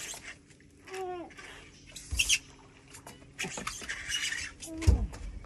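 Fishing line squeaking as it is pulled out through a gloved hand by a large hooked barramundi, with short falling squeaks about a second in and near the end. Scattered knocks and bursts of hiss come in between, and a heavy low thump comes near the end.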